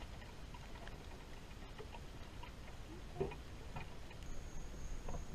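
Faint scattered clicks and light knocks of tools and engine parts being handled, with one sharper knock about three seconds in. A thin, steady high-pitched tone starts about four seconds in.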